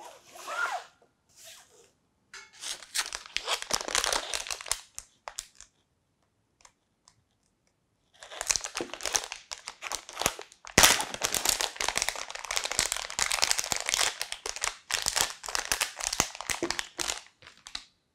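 Crinkling of a metallised anti-static bag being handled and opened, in two stretches, with a sharp snap about eleven seconds in.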